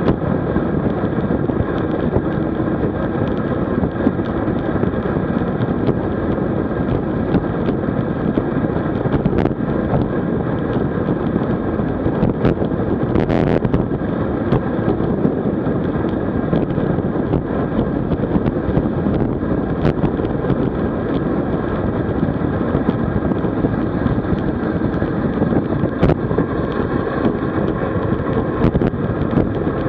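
Wind buffeting the microphone with steady road noise from a road bicycle riding at speed. Scattered sharp ticks and a brief hiss about halfway through.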